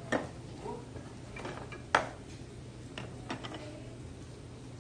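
Small side-dish bowls being shifted on a table, clinking against each other and the tabletop a few times, the loudest knock about two seconds in.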